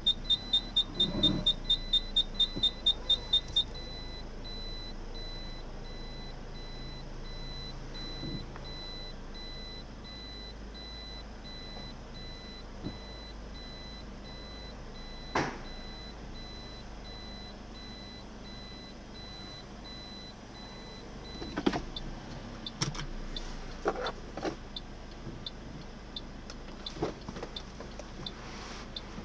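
A car's reversing-sensor buzzer beeping rapidly, about five high beeps a second, then changing a few seconds in to one continuous tone, the warning that an obstacle is very close behind. A single sharp knock comes about midway, and irregular clicks and knocks follow in the last several seconds.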